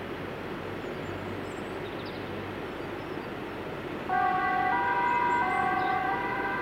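Fire truck's two-tone siren switching on about four seconds in, stepping back and forth between a lower and a higher tone about every two-thirds of a second. Before it there is only steady street traffic noise.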